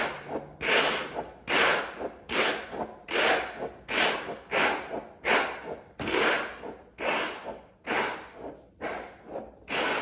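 A PBJs squishy stress ball (a green frog with a bead-filled gel ball) squeezed over and over by hand, a short squish with each squeeze, about once every three quarters of a second.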